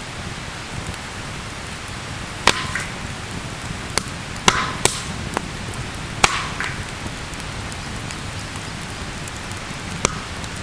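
Wood campfire crackling steadily, with several sharp pops from the burning wood. The loudest pops come about two and a half, four and a half and six seconds in, some trailed by a short hiss.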